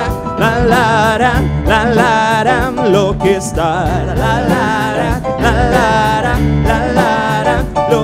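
A male singer singing with a wavering vibrato over a live band, with bass and drums keeping a steady beat.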